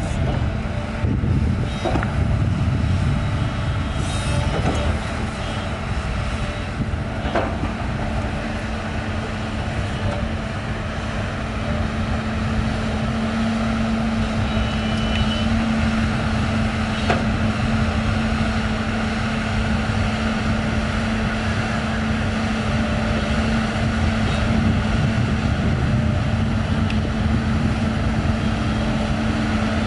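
Liugong 922D hydraulic excavator's diesel engine running steadily at working revs, a constant hum over a low rumble, with a few short sharp knocks from the machine as it works.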